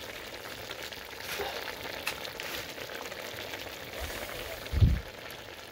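Pot of chicken and lemongrass stew simmering on a burner, giving a steady low bubbling hiss with faint crackles. A single low thump near the end.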